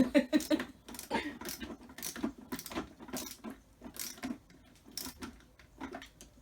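Screwdriver turning screws into the plastic housing of an electric pressure washer during assembly, with handling of plastic parts: a string of irregular clicks and light rattles.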